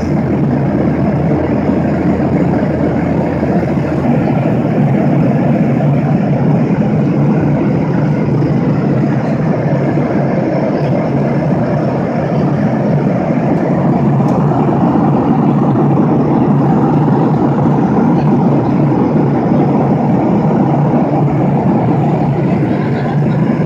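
Steady cabin noise of a jet airliner in flight: the constant drone of the turbofan engines and rushing airflow, heard from a window seat beside the engine.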